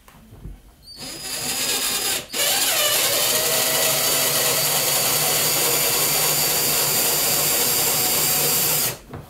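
Cordless drill-driver driving a long assembly screw into the sofa frame. The motor starts about a second in and runs briefly, stops for a moment, then runs steadily for about six seconds before stopping near the end.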